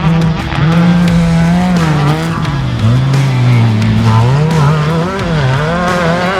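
Off-road race car's engine running hard, its revs rising and falling unevenly every fraction of a second as the car races.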